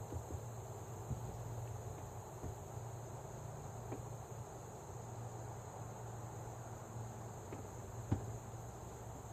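Steady high-pitched chorus of crickets and other insects, with a few faint clicks and one short knock about eight seconds in.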